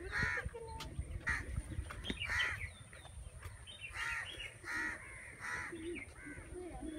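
Crows cawing, about six short, harsh calls spread across several seconds, over a low rumble.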